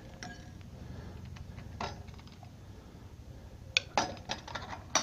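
Stainless steel percolator coffee pot being handled, its lid and basket clinking and rattling against the metal. One clink about two seconds in, then several sharper clinks close together near the end.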